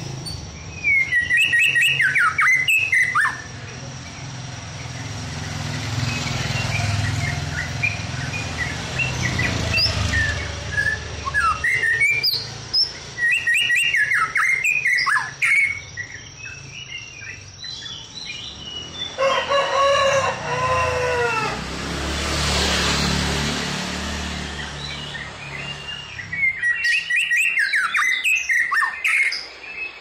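White-rumped shama singing in a cage: loud spells of quickly varied whistled phrases a few seconds long, three times, with pauses between, over a steady low background hum.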